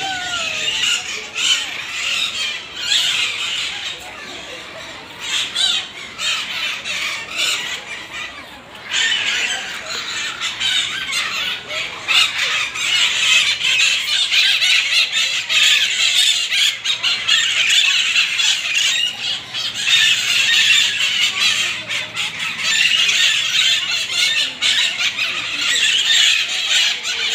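A dense, continuous chorus of shrill squawks and screeches from many caged birds, parakeets among them. It thins out briefly, then grows louder and fuller from about ten seconds in.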